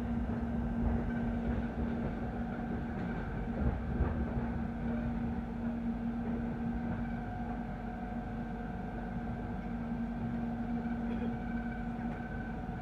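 Running noise inside a moving electric commuter train: a steady low rumble with a constant hum.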